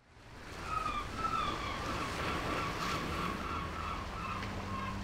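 Seaside ambience of waves and wind fading in, with a series of short repeated bird calls, about two a second, over the surf. A low steady tone comes in near the end.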